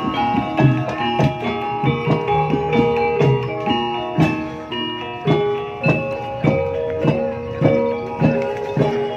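Ebeg accompaniment music: a gamelan-style ensemble of struck metal keyed instruments ringing many overlapping pitched notes over regular drum strokes.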